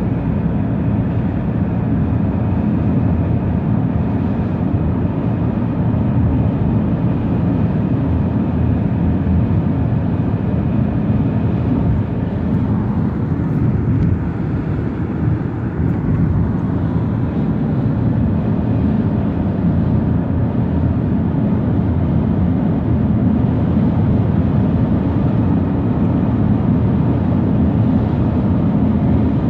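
Steady low rumble of a car cruising at highway speed, tyre and engine noise heard from inside the cabin, with a brief slight dip in loudness about fifteen seconds in.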